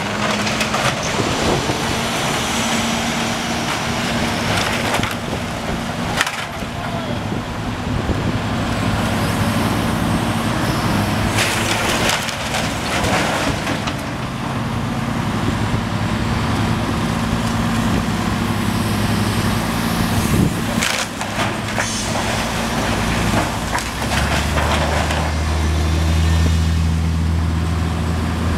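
Diesel engine of a demolition excavator running steadily as its grapple tears into a collapsed timber-and-brick building, with several crashes of splintering wood and falling debris. A deeper vehicle engine hum swells near the end as traffic passes.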